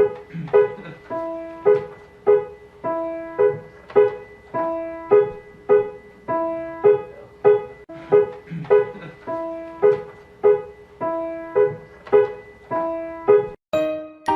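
Background piano music: a light repeating tune with notes on an even beat, a little under two a second. It breaks off briefly near the end and a quicker phrase begins.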